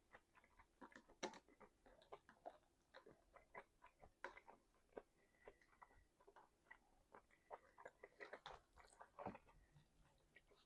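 Close-miked person chewing food: soft, irregular wet mouth clicks and smacks, several a second.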